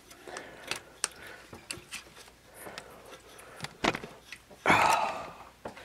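Scattered small clicks and knocks of pliers and metal parts as a gloved hand works the carburetor and its linkage off a lawnmower's Honda engine, with a sharper knock nearly four seconds in. About a second later comes a short grunt of effort.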